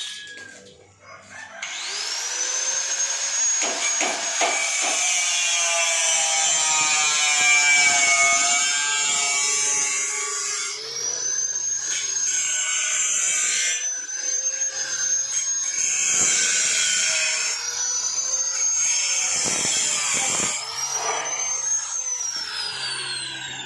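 Electric power tool running at high speed with a steady high whine. It spins up about two seconds in, dips briefly twice under load or on release, and winds down with a falling pitch near the end.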